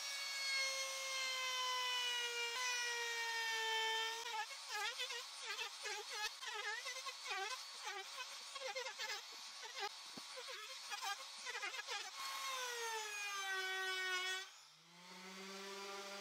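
Bosch palm trim router running with a high whine, its pitch dipping and wavering again and again as the roundover bit cuts along the pine edges. A little before the end it gives way to a random orbit sander starting up with a lower, steady buzz.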